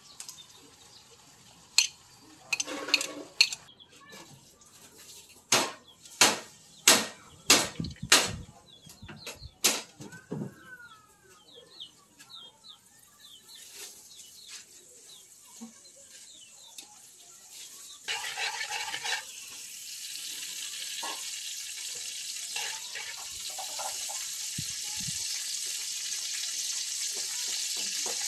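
A series of sharp metal clinks from a spoon against the aluminium wok and plate. Later, oil heating in the wok on a portable gas stove sizzles steadily, growing louder toward the end.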